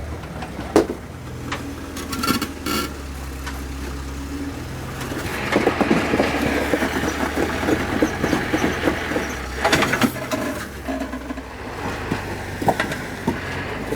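A 4x4's engine running as it crawls over rocks, with sharp knocks and scraping. It gets louder and rougher from about halfway in for several seconds.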